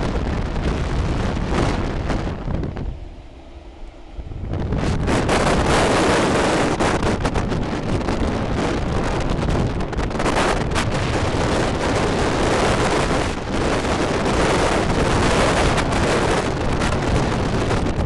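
Heavy wind buffeting a camera microphone held out of the window of a moving train, a constant rushing roar that drowns out other sound. It drops away for a second or two about three seconds in, then returns at full strength.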